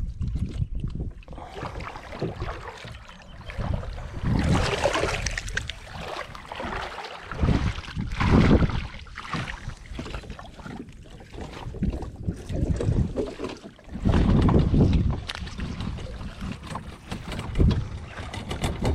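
Wind buffeting the microphone in irregular rumbling gusts a few seconds apart, over faint water sounds around a kayak.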